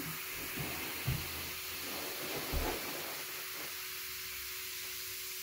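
Baking soda and vinegar fizzing in a plastic tub: a steady, even hiss of bubbling foam, with two soft low bumps about a second in and again a second and a half later.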